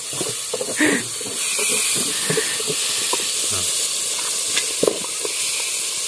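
A pot of soup steaming over a wood fire, giving a steady hiss, while a wooden spatula stirs and knocks now and then against the aluminium pot.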